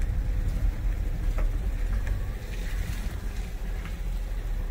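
Low, steady rumble of a car rolling slowly as it pulls in to park, with a few faint clicks.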